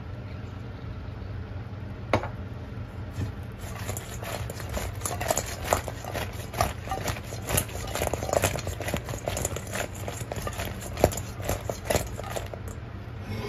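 Sauce-coated chicken wings tossed in a stainless steel bowl to coat them in buffalo sauce: an uneven run of wet slaps and knocks against the metal, starting about two seconds in and stopping shortly before the end, over a steady low hum.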